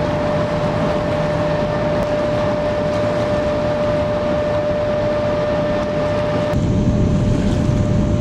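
Steady rushing outdoor noise with a constant thin whine running through it; about six and a half seconds in it changes abruptly to a deeper, louder rumble.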